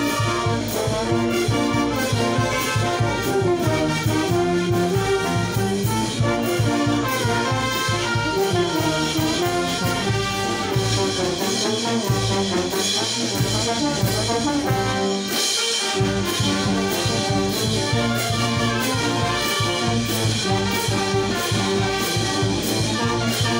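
A brass band plays a chimaychi and huayno medley live: trombones, trumpets and tubas over a steady drum and cymbal beat. The bass and beat drop out briefly twice about halfway through.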